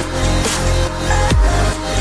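Electronic dance music with a heavy bass line and a steady beat.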